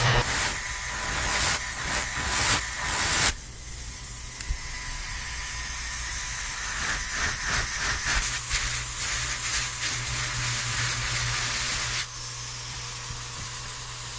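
A steady hiss like a spray of air or water, with a run of louder, sharp bursts in the first three seconds; it drops in level about twelve seconds in.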